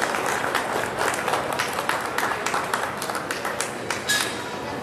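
Audience applauding with dense hand claps that thin out toward the end, and a single louder knock about four seconds in.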